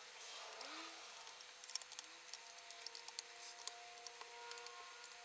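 Faint scattered clicks and light metal rubbing from the action of a Daystate Delta Wolf air rifle as its cocking arm is worked by hand, with a faint steady hum underneath.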